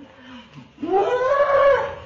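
An animal crying out: a faint short call with a falling pitch near the start, then a loud, long drawn-out call about a second in that rises and falls in pitch.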